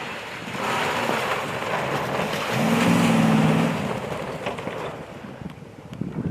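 Nissan Titan pickup driving through snow: a loud rushing of tyres and snow, swelling about half a second in and fading toward the end. A steady engine note rises out of it for about a second in the middle.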